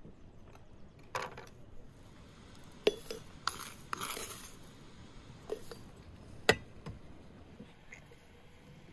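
Crockery clinks and knocks as loose dry tea is tipped from a wooden bowl into a porcelain teapot: several separate sharp clinks, with a brief rustle of pouring leaves about four seconds in. The sharpest clink comes about six and a half seconds in.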